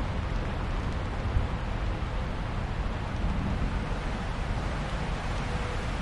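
Heavy rain falling steadily in a thunderstorm, with strong wind rumbling low underneath.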